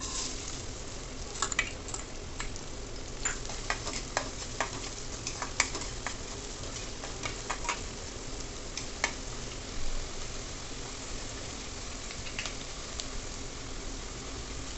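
Chopped onions dropped into hot oil in a kadai, sizzling steadily as they fry. A steel spatula stirs them, clicking and scraping against the pan many times, most often in the first two-thirds.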